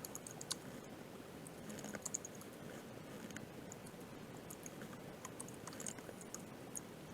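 Computer keyboard typing: faint, irregular keystrokes as a command is entered.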